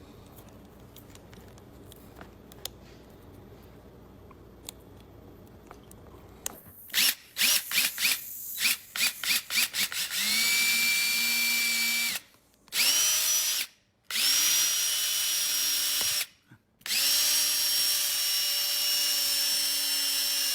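A small electric motor, driven in about ten quick on-off bursts, then run four times for one to four seconds at a time, each run rising to a steady high whine before it stops. For the first six seconds there are only faint scattered ticks.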